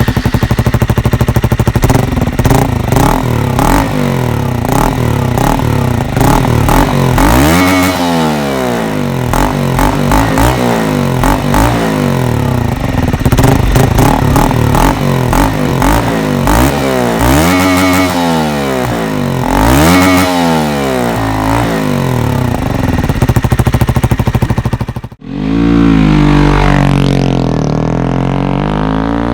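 KTM Duke 125's single-cylinder four-stroke engine, through a Radical Racing full exhaust with the stock dB killer fitted, running at a standstill with repeated throttle blips that rise and fall in pitch. Near the end the sound cuts off abruptly and gives way to the bike running again with a shifting pitch, as it does when riding past.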